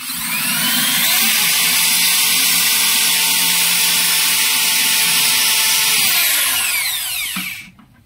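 Handheld electric drill spinning up and running steadily as it bores into a thin wooden arrow shaft, then winding down with a falling whine near the end.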